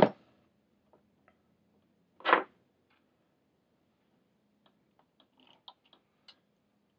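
Small, faint clicks and ticks of screws, standoffs and rubber feet being handled and fitted on a fiberglass mini quadcopter frame. There is one brief, louder rustling knock a little over two seconds in.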